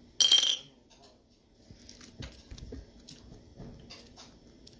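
A short, loud, high-pitched squeal just after the start, then faint squishing and crackling as slime with foam beads is squeezed and worked by hand.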